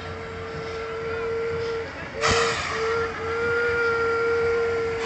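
A vehicle horn sounding one long, steady whistle-like note, broken by a few short gaps in the middle. About two seconds in, a short rushing whoosh of a propane flame burst from the fire-shooting art car cuts across it.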